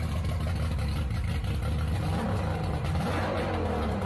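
Mercury 250 EFI outboard motor running loud and steady on a speedboat, its pitch shifting up and down a little about two to three seconds in.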